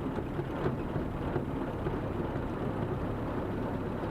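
1951 Willys CJ3A's four-cylinder Go-Devil flathead engine running steadily, with a low, even rumble.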